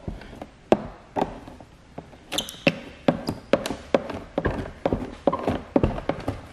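Plastic squeegee working wet paint protection film over a car mirror: a run of irregular small taps and knocks, with a couple of brief squeaks near the middle.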